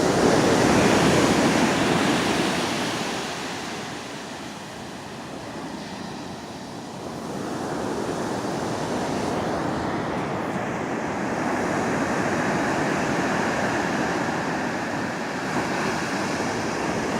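Ocean surf washing in as a steady noise, swelling loudest in the first few seconds, easing off about four seconds in, then building again and holding.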